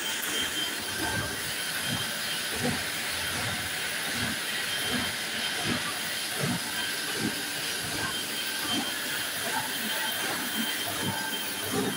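Heidelberg sheet-fed offset printing press running: a steady hiss of air with a regular clunk of the machine's cycle, a little more than once a second.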